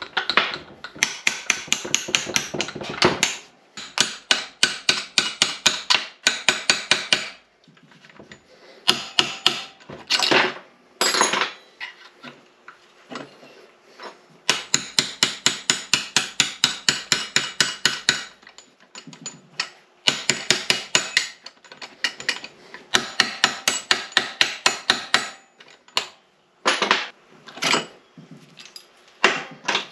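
Hammer striking steel in quick runs of taps, about five or six blows a second, with short pauses between runs: driving out a roll pin in an NP205 transfer case.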